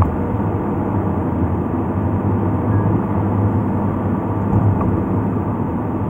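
Steady road noise inside a moving car: a low engine hum under tyre noise on a wet road.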